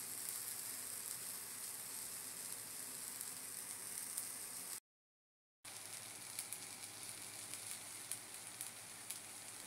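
Rice with diced peppers and tomatoes frying in a pan: a steady sizzle with scattered crackles. It cuts out for under a second about halfway through, then carries on.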